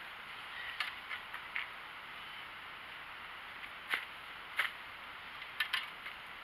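Dry leaves and sticks crackling as a compost pile of dead leaves and branches is handled, with about six short sharp cracks spread through, over a steady hiss.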